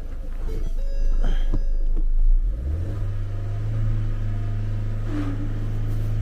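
Car engine running, with a few light clicks over its first two seconds; about three seconds in it speeds up and holds a steady, faster idle, as when an engine is kept running to charge a flat battery through jumper cables.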